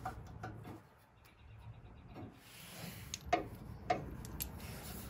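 A few faint metallic clicks and light scrapes as a bolt and its bushing are worked free by hand from the rear lift linkage of a Cub Cadet garden tractor, with two sharper clicks a little past the halfway mark.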